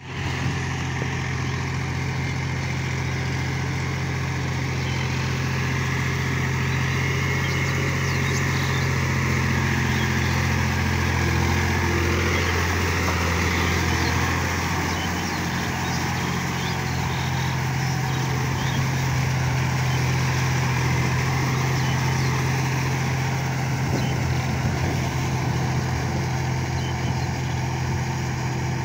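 John Deere 5045D tractor's three-cylinder diesel engine running steadily under load as it drives a rotavator through a flooded, muddy paddy field.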